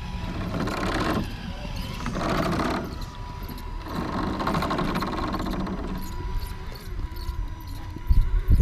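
Electric motors and geared drivetrains of RC rock crawlers whining in several short bursts as they creep slowly up rock, over a faint steady high tone. Low buffeting starts near the end.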